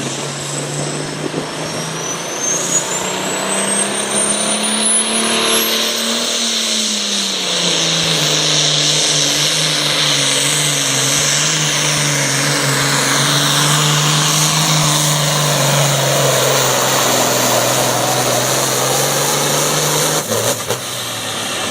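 Super Farm class tractor engine running hard through its run, a steady note that sags slightly about seven seconds in and then holds. Over the first six seconds a high whine climbs steadily in pitch. The engine note stops abruptly near the end.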